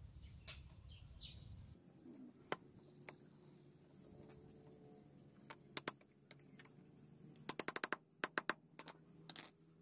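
Small hard clicks and taps from starter motor parts being handled and fitted together during reassembly: a few single clicks, then a quick rattling run of clicks about seven and a half seconds in.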